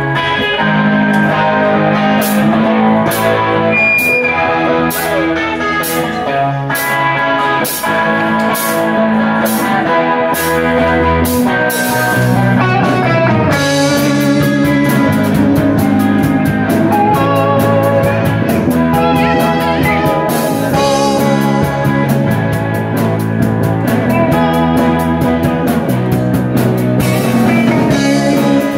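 Live rock band playing the instrumental opening of a song, without vocals: two electric guitars, electric bass and drum kit. About halfway through, the drumming gets busier and the cymbal strokes come faster.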